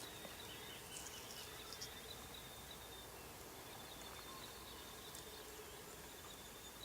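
Quiet outdoor background with a faint, thin, high insect trill that comes and goes. A few faint soft clicks sound about one and two seconds in.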